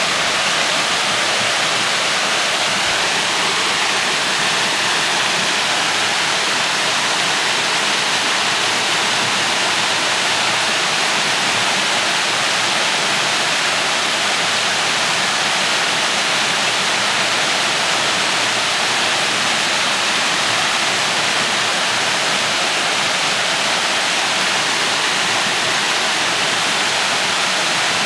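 Small waterfall pouring off a rock ledge into a pool: a steady, even rush of falling water, mostly hiss with little low rumble.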